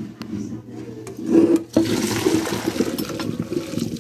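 Cooked spaghetti and its hot water poured from a pot into a colander in a stainless steel sink: a rush of splashing water begins about a second in and keeps up strongly, with a short break partway through.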